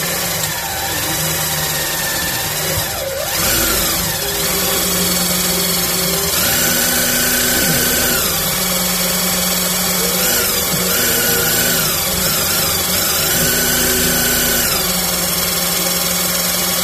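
Cordless drill running, drilling holes in the battery box's metal rail. The motor pitch steps up and down several times and holds at each speed as the trigger is eased and squeezed.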